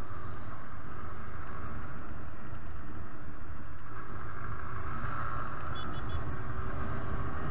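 Motorcycle engine with its stock exhaust running steadily at cruising speed, under wind noise on the microphone that grows stronger around four to six seconds in.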